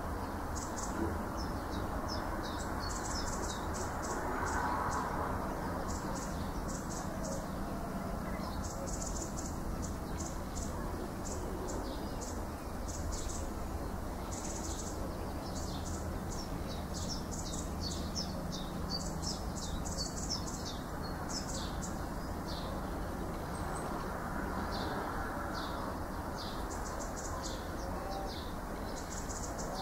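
House martins chirping at their mud nest: short, high calls come in quick runs throughout, over a steady low background noise.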